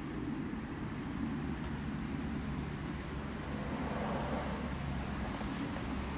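Steady high-pitched insect chorus, growing louder toward the end, over a low steady rumble.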